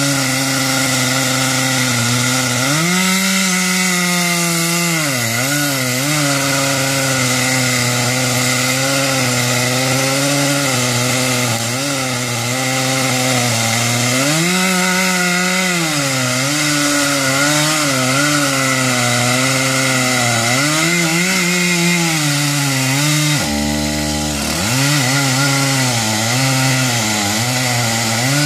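Gas chainsaw running at full throttle cutting through oak, its pitch rising and falling repeatedly as the cut loads and frees the chain. About two-thirds of the way in the throttle drops briefly to idle and is revved back up.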